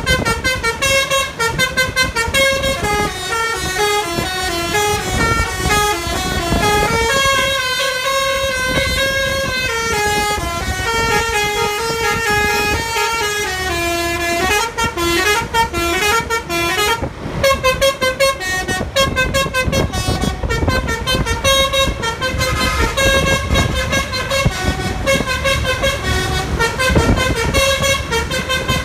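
Bus 'basuri' musical horn playing a long melody of held notes that step up and down, with a short break about seventeen seconds in, over the low rumble of engines.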